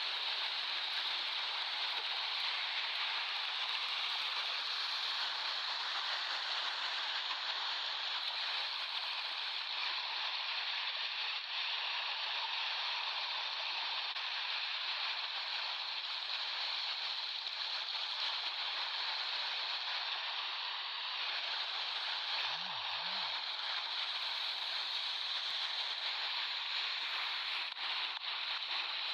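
Sea surf washing onto a beach, a continuous steady rush of breaking waves with no distinct single breakers standing out.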